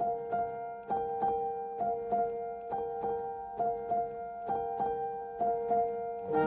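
Background music: a gentle keyboard melody of evenly repeating notes over held tones, with fuller accompaniment coming in near the end.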